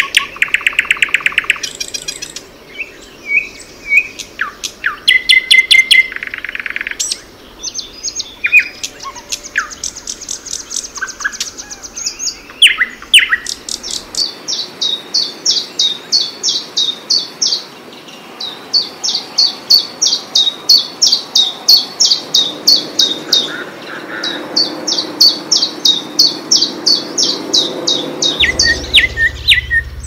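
Songbirds singing. For the first half a brown nightingale-type bird sings a varied song of rapid trills, whistles and clicks. After about fourteen seconds a small leaf warbler takes over with a long run of evenly repeated high notes, and near the end lower whistled notes return.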